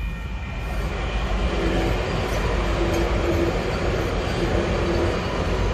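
Metro Rail light-rail train passing through a street level crossing: a steady rumble of wheels on the rails, with a faint low whine that comes and goes.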